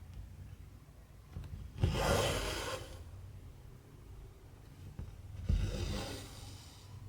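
Cotton embroidery thread pulled through 14-count cross-stitch fabric twice, about three and a half seconds apart, each pull a swishing rush lasting about a second.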